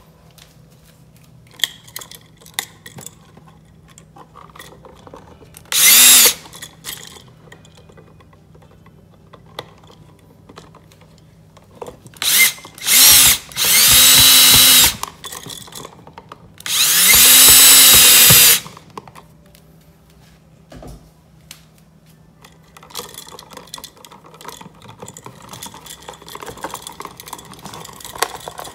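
Electric drill run in five trigger bursts, each spinning up quickly: a brief one, two short blips, then two runs of about a second and a half. Faint clicks and handling noise come between the bursts.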